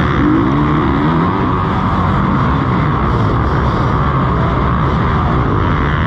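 Motocross bike engines racing in a close pack: the onboard bike's engine is revving hard among the engines of the surrounding bikes, its pitch rising and falling with throttle and gear changes in the first second or so.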